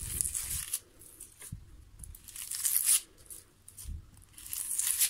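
Dry, papery onion skin being peeled off a large onion by hand, crackling and tearing in several short bouts, with a couple of soft knocks.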